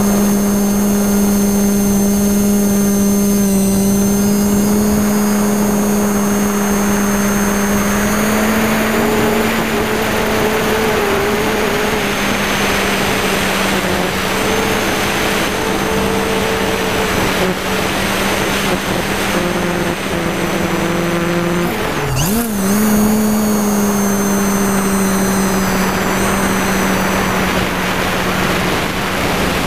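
Electric multicopter motors and propellers humming steadily in flight, with a high whine above the hum and a rushing wind noise on the microphone that swells and fades. About two-thirds of the way through, the pitch dips sharply and jumps back up, a quick throttle change.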